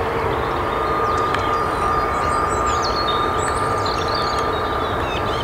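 Steady rumble of distant jet aircraft engines with a thin, even whine running through it, while small birds chirp and trill in short high calls.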